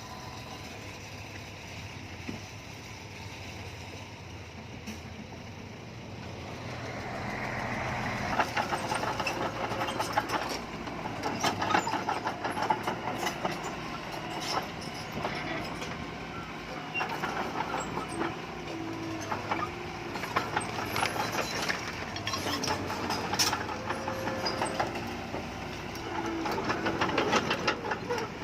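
Heavy earthmoving machinery running: a steady engine for the first few seconds, then louder from about seven seconds in with a dense clatter of knocks and rattles.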